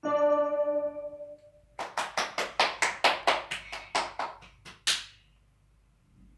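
A final note on an electronic keyboard rings out and fades over about a second and a half, then hands clap about a dozen times in quick, even succession for about three seconds.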